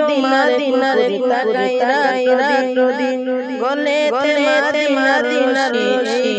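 A boy singing a qasida, a Bengali Islamic devotional song, solo from a book, with a sliding, ornamented melody over a steady held drone.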